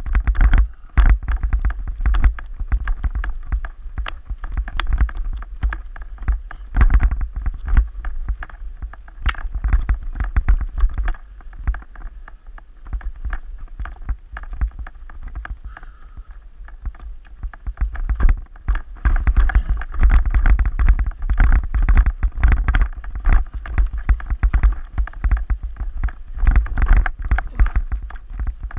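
Mountain bike ridden over rough forest singletrack: a dense, irregular clatter of knocks and rattles from the bike jolting over roots and rocks, over a low rumble of wind on the microphone. It eases off for a few seconds midway, then turns busy again.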